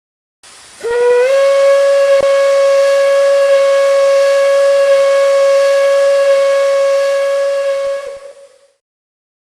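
A steam whistle blown in one long blast. A hiss of steam comes first, then a single steady note that slides up slightly as it sounds, holds for about seven seconds and trails off.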